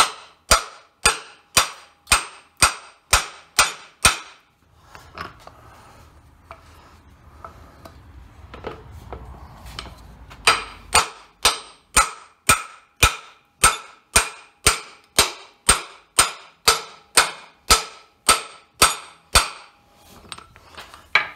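Steel hammer blows on a Jeep driveshaft's U-joint yoke laid across a vise, knocking the U-joint bearing caps out. There is a steady run of sharp metallic strikes about two a second, then a pause of several seconds with faint handling noise, then a second, longer run of strikes at the same pace.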